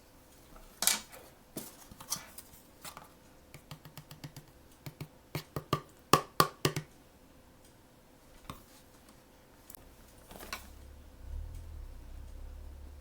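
Hands handling and opening blind-box packaging: scattered sharp clicks and taps, with a quick run of louder clicks about six seconds in, then a faint low rumble near the end.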